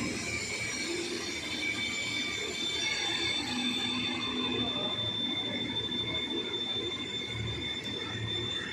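Automatic keyway milling machine running, a steady mechanical clatter with a high-pitched whine that grows stronger about three seconds in.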